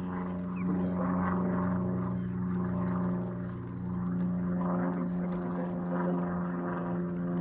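A steady low hum of unchanging pitch, under a rushing noise that swells and fades every second or two.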